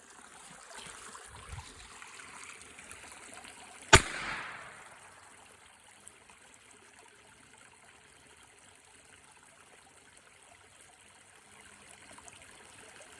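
A single gunshot about four seconds in, sharp and loud with a brief echoing tail, over a steady trickle of flowing water.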